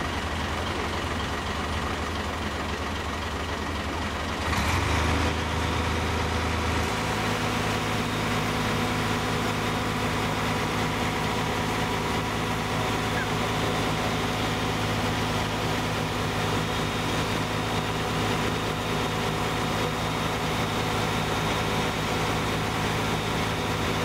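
Flatbed carrier truck's diesel engine running steadily. About four and a half seconds in it rises to a louder, higher, steady run while the danjiri float is moved off the bed. It holds that level until the end.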